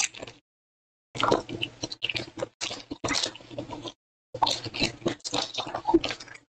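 Foil trading-card pack wrappers crinkling and being torn open, with cards slid out of the pack, in three bursts of crackly handling separated by silence.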